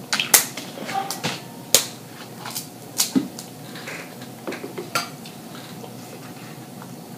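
Crab leg shells being cracked and picked apart by hand, heard as a series of sharp cracks and clicks against the dishes. The loudest come in the first two seconds, and they die away after about five seconds.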